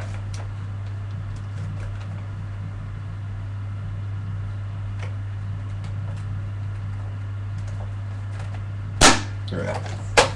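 Hands working on a spring-powered airsoft AK47 replica: a few faint plastic clicks over a low steady hum, then one loud sharp snap about nine seconds in and another just at the end.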